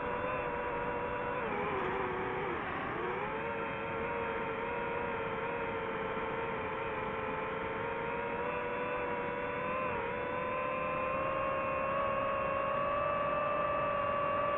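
Multirotor drone's electric motors and propellers whining steadily. The pitch dips briefly about two seconds in, then slowly climbs toward the end.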